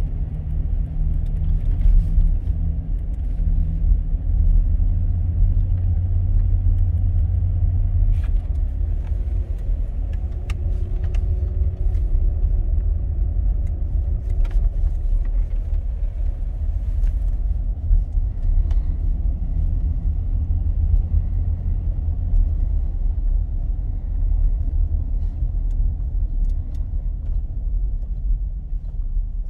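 Interior sound of a 1996 Chevy Tahoe LS 4x4 driven at low speed: a steady low rumble of engine, drivetrain and road noise, with a few faint clicks.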